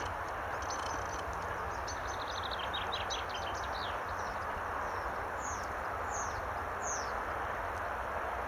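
Wind rumbling on the microphone over a steady rustle, with small birds singing: a rapid trill that falls in pitch about two to four seconds in, then three short falling whistles near the end.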